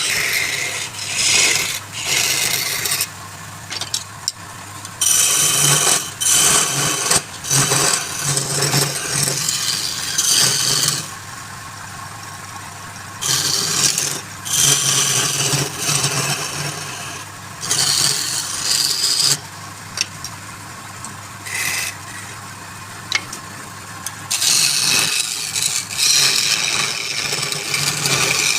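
Wood lathe running with a steady low hum while a turning tool scrapes the spinning wood in repeated passes, each a hissing cut of one to a few seconds with short pauses between.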